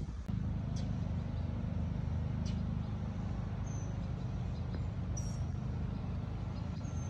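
Steady low rumble outdoors, with a few short, high bird chirps over it.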